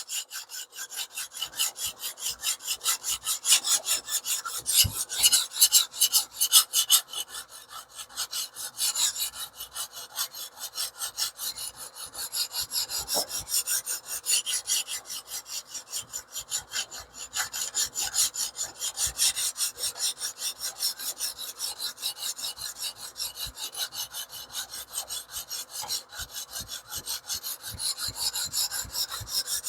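A 150-grit sharpening stone on a TS Prof Kadet Pro guided sharpening system being stroked back and forth along a small cleaver-shaped knife's edge in quick, even, repeated scraping passes, grinding the edge bevel.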